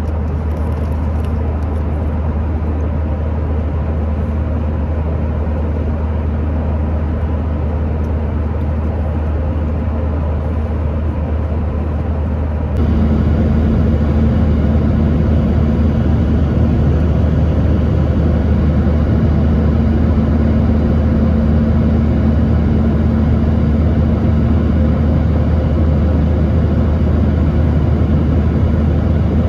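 Steady cabin drone of a Boeing 737-900ER with its CFM56 jet engines running, a loud low rumble under airflow noise. About 13 seconds in, the sound jumps suddenly louder and fuller, with a steady hum added.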